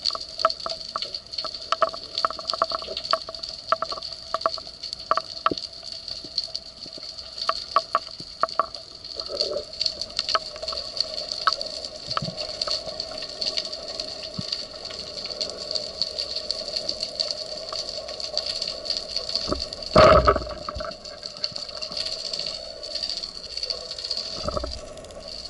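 Underwater ambience heard through a camera housing on a speargun: a steady hiss with many scattered crackling clicks, and a loud low whoosh of moving water about twenty seconds in.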